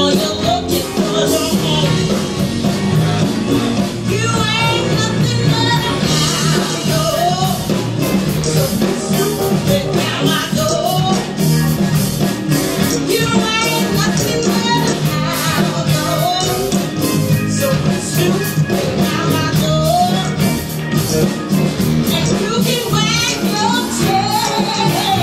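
Live band playing an up-tempo rock and roll number, with a singer's voice over it.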